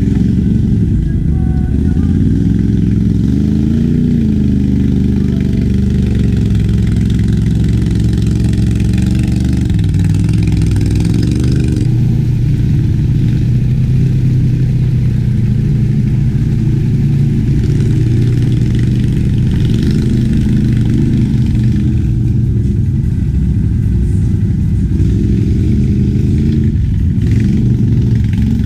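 ATV engine running under load, its pitch rising and falling as the throttle is worked.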